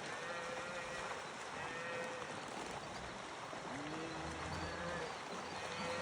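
Cattle mooing, about five drawn-out calls from the herd one after another, over a steady background hiss.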